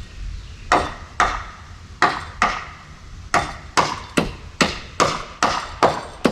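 A hammer striking repeatedly, about a dozen sharp blows, in uneven pairs at first and then quickening to a steady two or three blows a second.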